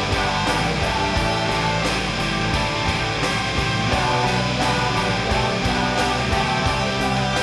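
Instrumental stretch of an alternative rock song: distorted electric guitars over bass and a steady drum beat, with no vocals.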